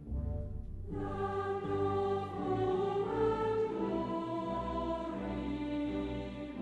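Background music: choral voices over an orchestral backing, with held chords that change every second or so, entering fully about a second in.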